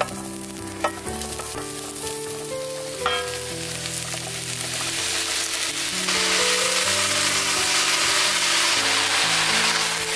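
Chopped vegetables tipped into hot oil in an enamelled cast-iron pot, sizzling, with a few sharp clinks of the tray and pieces against the pot in the first three seconds. The frying sizzle builds and grows louder from about six seconds in as the vegetables are stirred. Background music plays steady notes underneath.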